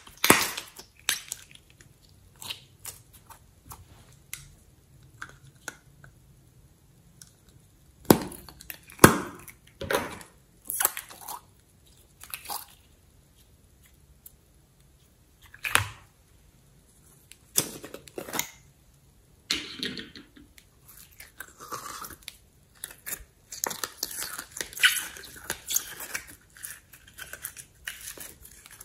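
Slime squished and handled by hand: scattered pops and clicks, several louder, turning into a denser run of crackles in the last few seconds as slime is pulled out of a plastic jar.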